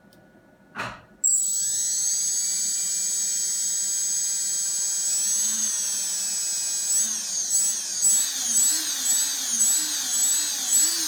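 RS2205 brushless drone motor spinning with a high-pitched screech, which starts abruptly just after a click about a second in. The screech holds steady for several seconds, then wavers rapidly up and down in pitch, about twice a second, near the end.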